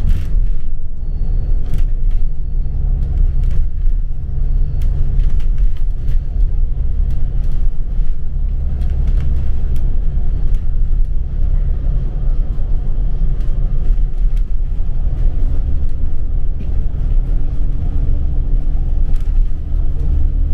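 Ride inside a moving bus: steady low engine and road rumble with a few faint clicks and rattles. A steady hum joins about three-quarters of the way through.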